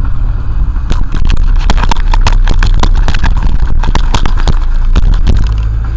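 Car cabin noise: steady engine and road rumble, with a quick, irregular run of clicks and knocks, several a second, starting about a second in and stopping near the end.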